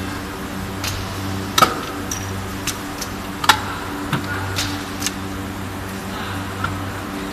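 Vertical injection molding machine running in its automatic cycle: a steady hum with sharp metallic clacks as the mold slides and part transfer move, the two loudest about one and a half and three and a half seconds in, with several lighter clicks between.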